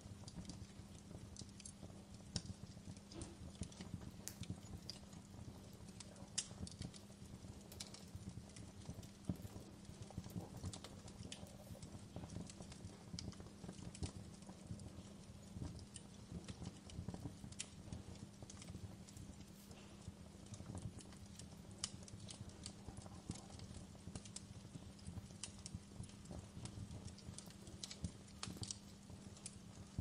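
Typing on a laptop keyboard, soft irregular key clicks, over a faint steady hum and a bed of low, uneven knocking.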